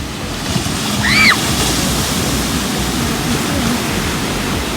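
Ocean surf washing onto a beach in a steady rush. About a second in, a single short high call rises and falls.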